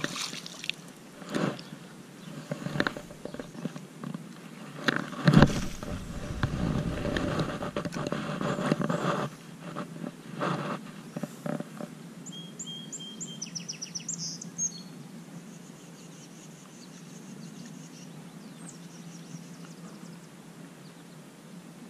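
A bass splashing back into the lake as it is released, followed by knocks, rustling and handling noise from casting and working a spinning rod and reel, close to a chest-mounted camera. A short run of high chirps, like a bird, comes about halfway through.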